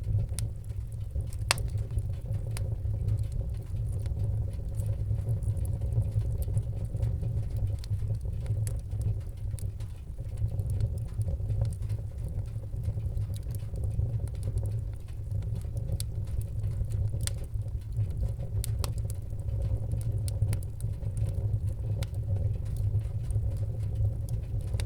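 Fire burning: a steady low roar with scattered sharp crackles and pops.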